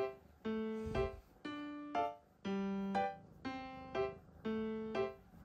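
Background music: a light keyboard tune of short, evenly spaced notes, about two a second.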